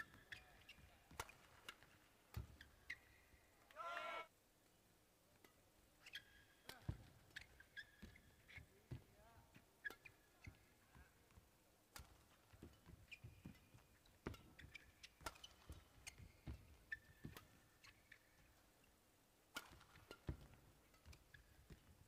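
Faint badminton play: sharp racket strikes on the shuttlecock at irregular intervals, with short high squeaks of court shoes on the floor.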